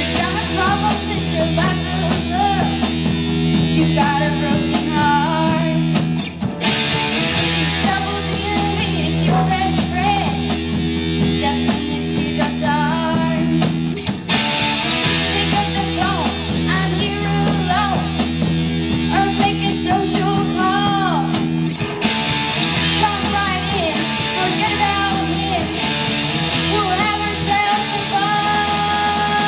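A young rock band playing live: a girl sings lead over distorted electric guitars, electric bass and a drum kit, the music running continuously.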